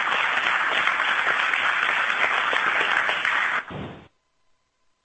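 A crowd applauding the rocket's first-stage separation: dense, steady clapping that stops abruptly about three and a half seconds in, followed by near silence.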